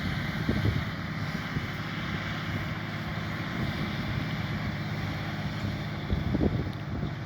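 Massey Ferguson 7718S tractor engine running steadily under load while ploughing, with wind buffeting the microphone in a few gusts.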